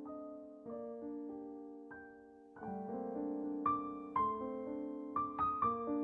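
Soft background piano music: single notes played as a slow melody over held chords, getting busier about halfway through.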